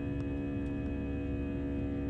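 Steady drone inside an Airbus A320 cabin: constant engine tones over a low rumble, with a few faint ticks.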